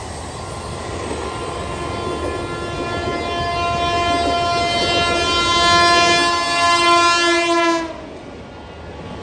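Indian Railways electric locomotive air horn sounding one long blast of about six seconds, loudest as the trains meet and cutting off sharply near the end, over the rumble and wheel clatter of the moving train.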